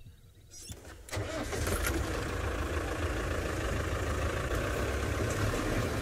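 Open safari game-drive vehicle's engine running steadily, coming in abruptly about a second in after near quiet.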